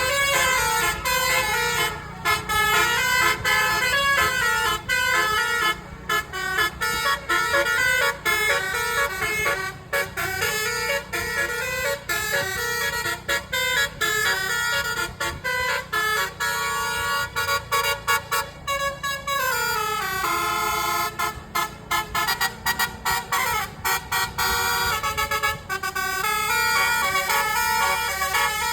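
Multi-trumpet telolet air horns on a bus playing quick melodic tunes of short stepped notes that change pitch constantly, with a falling slide in pitch about two-thirds of the way through. A low rumble of the moving bus runs underneath.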